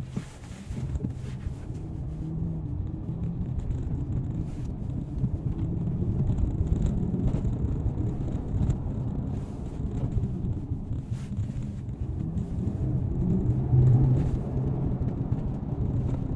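Low engine and road rumble inside a moving car's cabin, growing louder over the first several seconds, then holding steady.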